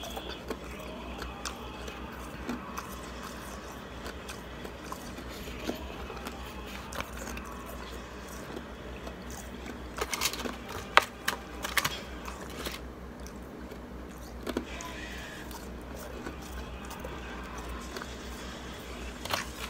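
Shaved ice being handled and chewed: soft crunching and small clicks over a steady low hum. About ten to thirteen seconds in comes a cluster of sharp clicks and scrapes as fingers pick ice from a plastic bowl.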